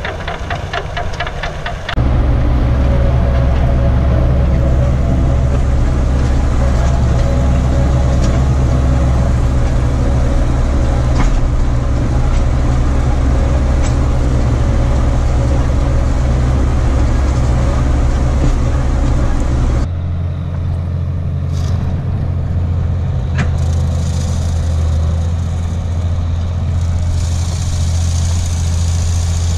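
Farm tractor's diesel engine running steadily under load as it works a field. About two seconds in it gets louder and deeper, heard from inside the cab; at a cut about two-thirds of the way through it changes to a different steady note.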